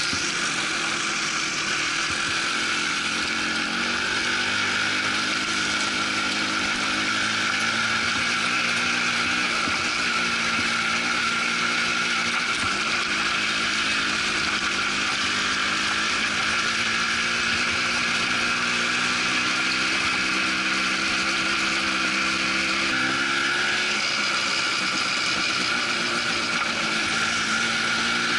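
Quad bike engine running steadily under way, heard from on board, its note rising and falling a little with the throttle, over a continuous rush of wind and tyres on gravel.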